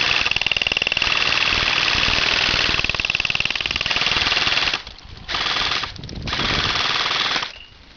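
Airsoft electric rifle firing on full auto, a fast clatter over a high gearbox whine: one long burst, then two short bursts near the end. The quick emptying of the BB magazine is heard.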